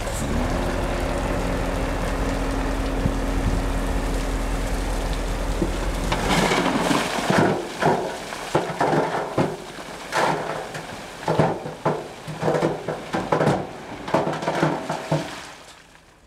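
Dump truck engine running steadily while its tipper bed lifts, then a load of earth and rocks slides out and clatters onto the road in a long run of irregular knocks and rattles that dies away near the end.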